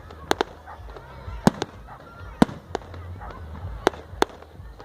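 Fireworks bursting overhead: a string of sharp bangs and cracks, about eight in all, the loudest around a second and a half and two and a half seconds in, over a low rumble.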